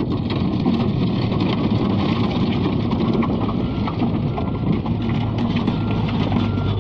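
Bobcat L213 skid steer loader working: its engine runs steadily with rattling and clanking. About five seconds in, a faint repeating beep starts.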